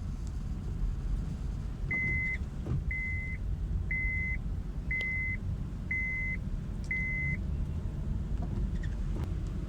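A car's warning chime beeping six times, about once a second, each beep a short steady high tone, over the low rumble of the car running.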